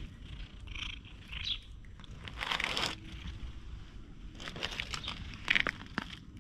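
Stray cat purring while a hand strokes it, with a brief rustle of the hand rubbing its fur about two and a half seconds in.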